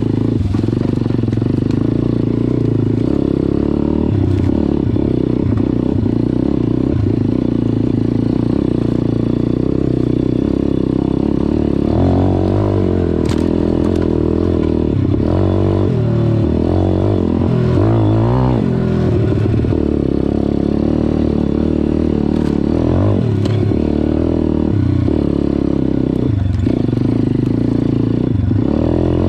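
MRF 140 RC-Z pit bike's four-stroke single-cylinder engine running under way, revs rising and falling with the throttle, busiest in the middle stretch. Scattered clatters and knocks come from the bike working over rough ground.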